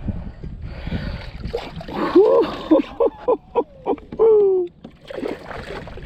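A hooked bass splashing and thrashing at the water's surface as it is reeled toward the boat. In the middle come a series of short pitched vocal calls, the last one longer and falling.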